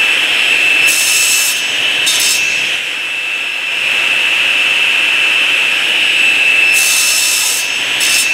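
Table saw running at a steady high whine, its carbide-tipped combination blade cutting 1/8-inch acrylic sheet pushed through on a cross-cut sled. Short hissing bursts of cutting noise come about a second in, again around two seconds, and near the end.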